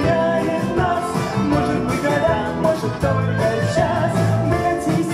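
Live band playing a song: clarinet, bayan (button accordion), piano, acoustic guitar, bass and drums.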